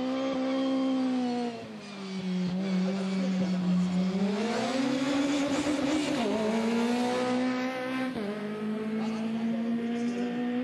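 Racing kart two-stroke engines running at high revs as karts pass on the track. The engine note falls about two seconds in, climbs again around four to five seconds, and drops once more near eight seconds as the drivers lift off and get back on the throttle.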